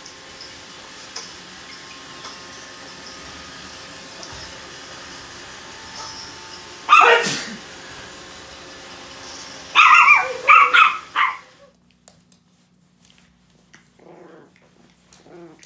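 Teacup chihuahua barking over the steady hum of a running robot vacuum: one bark about seven seconds in, then a quick run of four or five barks around ten seconds. Near the end, faint growling from the dog.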